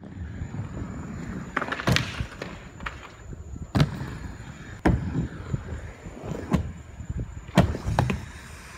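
Rollerblade TRS aggressive inline skates rolling across a concrete skatepark bowl, a low rumble of the wheels broken by several sharp knocks and slaps as the skates hit the coping and the bowl surface. Two close knocks near the end come as the skater goes down onto the bowl floor.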